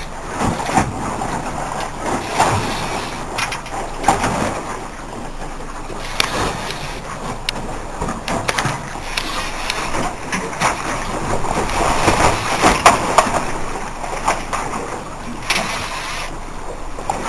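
Sport-fishing boat at sea: a steady rush of wind and water, broken by many short knocks and bumps.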